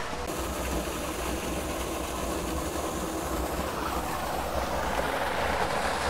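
Small waterfall pouring into a rock pool: a steady wash of falling and splashing water.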